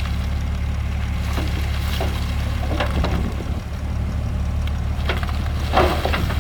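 Heavy diesel engine of earthmoving machinery running steadily with a deep rumble, with scattered short clanks and knocks over it.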